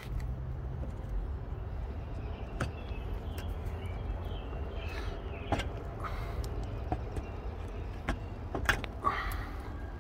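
Plastic one-time-use bumper clips on a BMW E46 being snapped out with pliers. A few sharp clicks and snaps come at scattered moments over a steady low rumble.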